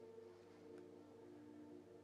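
Very faint soft background music: held, sustained notes, near the level of silence.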